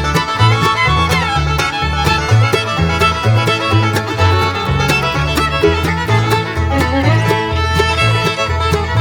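Instrumental background music with a steady beat, a bass line stepping from note to note, and a melody that slides between pitches.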